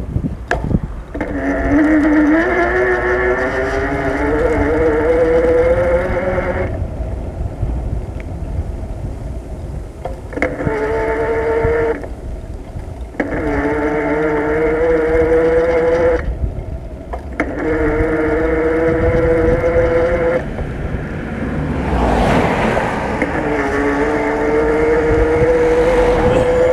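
A whine from the bike as it rides, rising slowly in pitch and cutting off abruptly four times before starting again. A vehicle passes near the end with a short rush of noise.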